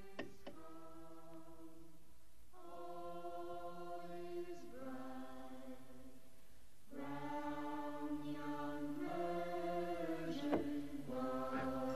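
Song intro: voices in a choir singing long held chords that change about every two seconds and grow fuller partway through, with a few brief sharp hits.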